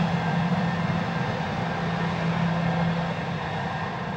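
Boeing 717's Rolls-Royce BR715 turbofan engines running at taxi power, a steady jet rumble with a low hum and higher whine, growing slightly quieter near the end as the aircraft turns away.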